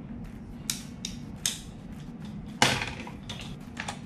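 Hands handling computer gear on a desk: a few sharp clicks and clacks, the loudest about two and a half seconds in, over a steady low hum.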